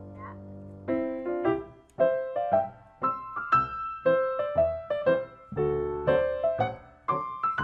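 Background piano music: a held chord fades out over the first second, then a melody of separate notes, about two or three a second.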